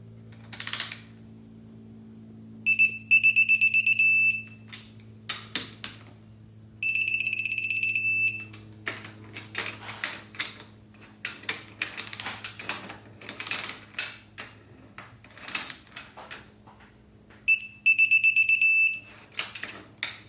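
Electronic torque wrench beeping in three rapid pulsed bursts of about a second and a half each, the signal that a bolt has reached the set torque of 15 newton metres, with ratchet clicks between the bursts.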